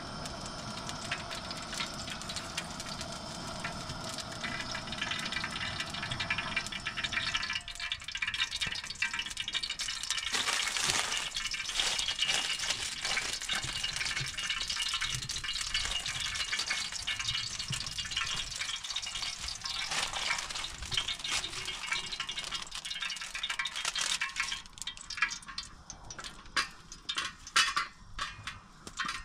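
Fat melting and sizzling in a metal pan over a gas burner, a steady frying hiss that grows fuller about a third of the way in. Sharp crackling pops come in over the last few seconds as the fat gets hot.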